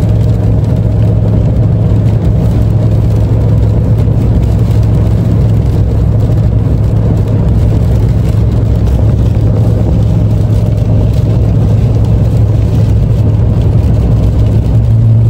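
Steady low drone of a Chevrolet Silverado pickup's engine and tyre noise, heard from inside the cab while driving on a wet road.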